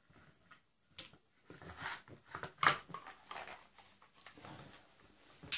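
Handling noises from a G&G M1 Garand airsoft rifle being reassembled: a few sharp clicks and knocks of its metal and wooden parts, with rubbing and shuffling in between, the loudest click right at the end.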